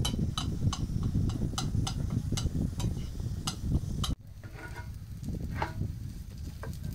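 A knife tapping against a ceramic plate about three times a second as tofu is cut on it. About four seconds in, the sound drops abruptly to a few scrapes of a wooden spatula stirring green garlic in a frying pan.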